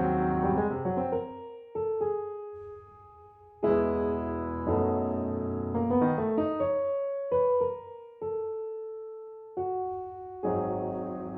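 Background piano music: a slow, gentle melody of single notes and chords, each dying away, with short pauses between phrases.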